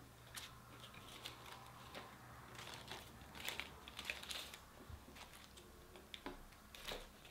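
Faint, scattered light clicks and crinkles of fast-food wrappers and packets being handled.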